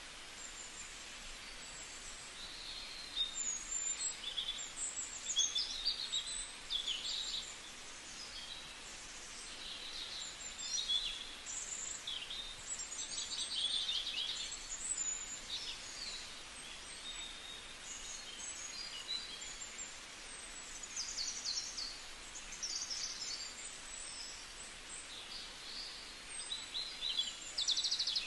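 Small birds chirping and trilling, short high calls every second or two with a few rapid trills, over a steady background hiss.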